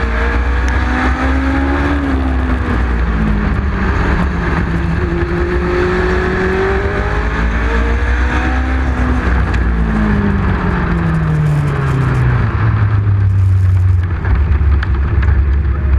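Legend race car's Yamaha 1200 cc four-cylinder motorcycle engine at racing speed, heard on board with heavy wind noise. The engine note climbs, then falls steadily from about nine seconds in and settles low near the end.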